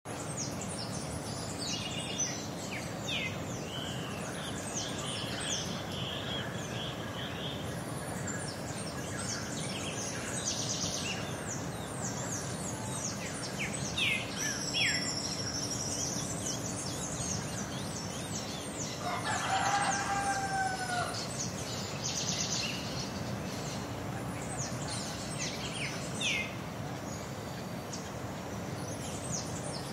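Rural village morning ambience: small birds chirping and calling throughout, and a rooster crowing once about twenty seconds in, over a steady low background hum.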